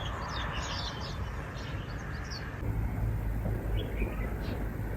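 Small birds chirping, many short calls close together, over a steady low rumble. About two and a half seconds in, the background shifts: the chirps thin out and the rumble grows stronger.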